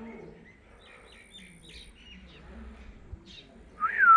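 Blue Indian ringneck parakeet giving a string of soft short chirps, then one loud whistled call near the end that dips and rises in pitch.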